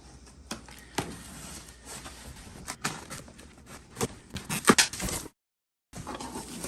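Packaging being opened and handled: scattered knocks, taps and rustles, irregular and unhurried. The sound cuts out completely for about half a second a little after five seconds in.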